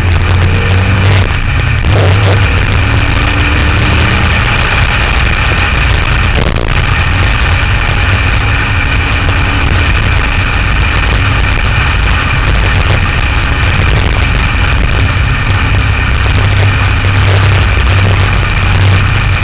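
Sports car driving at a steady speed, heard from a hood-mounted camera: a steady low engine drone under heavy wind rush on the microphone.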